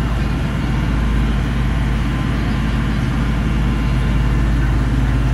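Tour boat's engine running steadily, a low even drone, with the rush of wind and water passing the hull.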